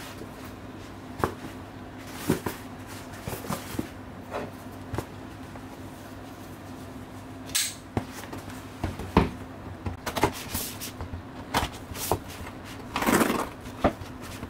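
A cardboard parcel handled with gloved hands: scattered taps, knocks and rustles of the box being turned over and set down. A longer scraping burst near the end comes as a folding knife is put to the box. A steady low hum runs underneath.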